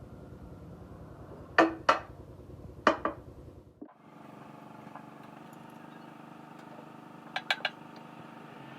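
Metal tools clinking against metal engine parts. There are two pairs of sharp clinks in the first few seconds, then three quick clinks near the end, over a steady machine hum.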